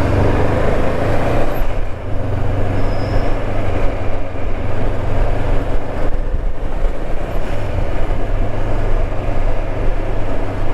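Honda CB500X parallel-twin engine running steadily under way, a low drone mixed with wind rushing over the microphone.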